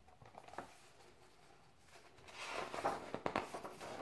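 A few faint taps, then from about two seconds in, paper rustling with small crackles as a page of a picture book is turned.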